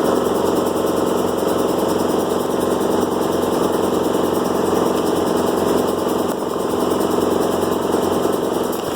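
Yamaha YZ125's single-cylinder two-stroke engine running steadily at idle.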